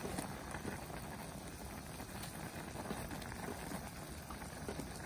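A pot of instant ramyeon boiling on a portable gas burner: steady bubbling with many small pops.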